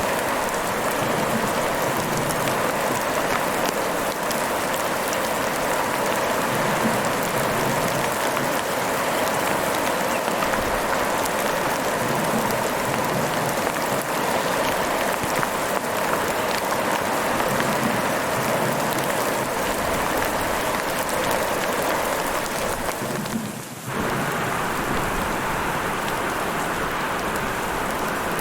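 Heavy rain falling steadily, a dense even patter of drops. About three quarters of the way through it briefly dips in level, then comes back at full strength.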